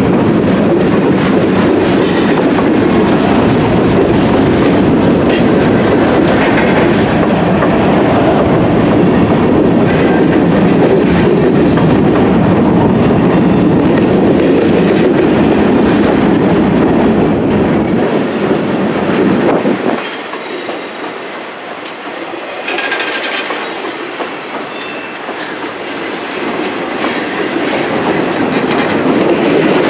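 Train rolling past on the rails, wheels clattering over the rail joints. About two-thirds through, the sound drops suddenly and thins out, then builds back up, with a few brief high wheel squeals.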